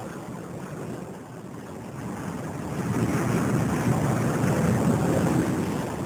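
Deep rushing rumble of a huge tsunami wave bearing down on a beach, swelling louder about halfway through.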